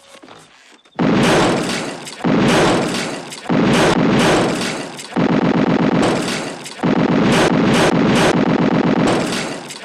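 A loud, distorted sound cut in five times in a row, each one starting abruptly and fading over a second or more.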